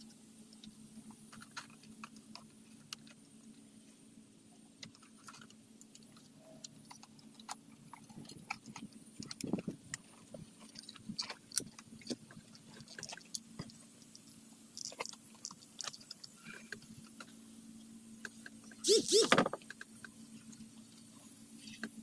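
Small clicks, taps and rattles of plastic and metal parts being handled as a carburetor is fitted to a Husqvarna 324L string trimmer, with a brief louder clatter about nineteen seconds in, over a steady low hum.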